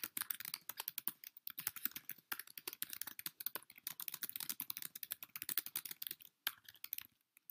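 Typing on a computer keyboard: a fast, steady stream of keystrokes that breaks off about six seconds in, followed by a few scattered key presses near the end.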